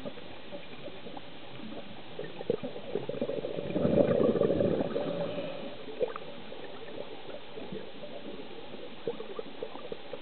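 Scuba diver's exhaled bubbles gurgling up in one burst lasting about a second and a half, a few seconds in, heard underwater. Around it is a steady underwater hiss with scattered faint clicks.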